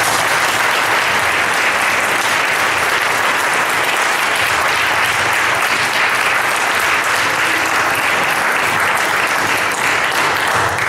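A group of people applauding steadily.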